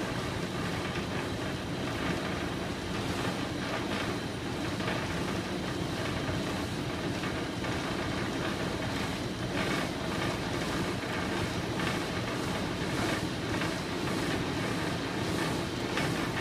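Steady rumble and rattle of a tow vessel's diesel engine running at a constant speed, heard on board.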